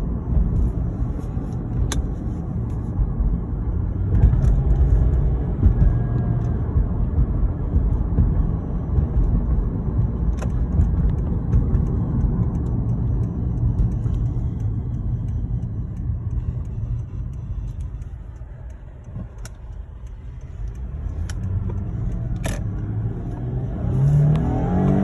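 Lexus IS250's 2.5-litre V6 running as the car drives and accelerates, a steady low rumble that eases off briefly past the middle and builds again. The owner hears a new high-pitched whistle from it under acceleration, which is hard to pick up on recording.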